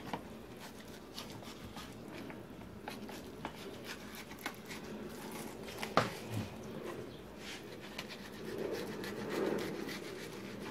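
Knife working through a striped bass on a cutting board, cutting the fillet away from the skin: faint scraping and rubbing with small clicks, and one sharper click about six seconds in.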